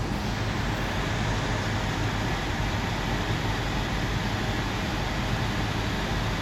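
Steady rush of air from a 2005 Cadillac Escalade's climate-control blower running on high for cooling, heard inside the cab, over the low, even hum of the V8 engine idling.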